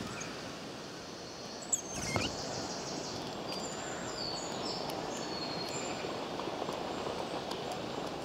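Woodland birds singing: scattered short, high chirps and whistles over a steady outdoor hiss, with a sharp click and a brief flutter about two seconds in.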